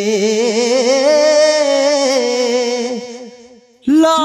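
A singer holding a long, ornamented note at the end of a line of a Punjabi kalam, the pitch wavering and climbing a little before fading out about three seconds in. A new sung phrase comes in just before the end.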